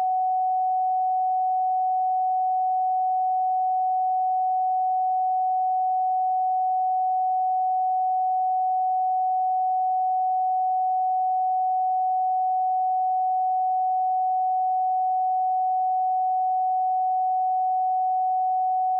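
A pure electronic sine tone held at one steady mid pitch, with no overtones and no change in pitch or loudness.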